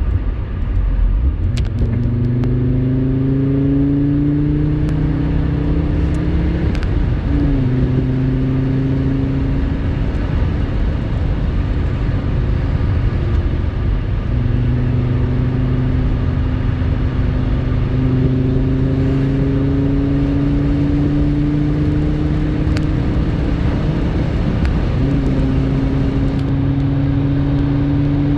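Audi 90 B2's inline five-cylinder engine pulling the car along, its note climbing slowly in each gear and dropping at shifts, about seven seconds in and again near the middle and near the end.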